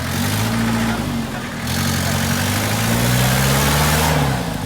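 An off-road 4x4 vehicle's engine revving under load in two pushes, the pitch climbing steadily through the second, over a loud hiss. The revs drop away about four seconds in.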